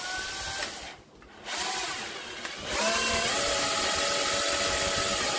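Electric drill driving screws into a wooden door panel, its motor whining in three runs. There is a short run at the start, another about a second and a half in, and then a longer steady run of about three seconds that rises in pitch as it starts.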